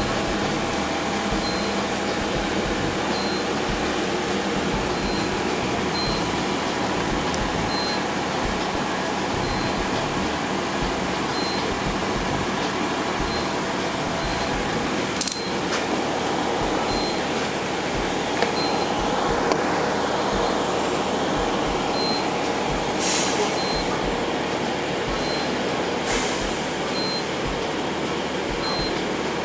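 Steady interior noise of a moving bus, the engine and road rumble heard from inside the cabin. A short high beep repeats about every second and a half, and there are a few sharp clicks or knocks in the second half.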